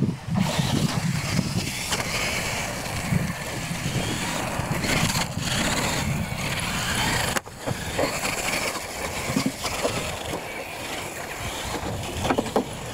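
Radio-controlled trucks racing on a dirt track: their small motors running and tyres churning over dirt and ramps, with a brief break in the sound about seven and a half seconds in.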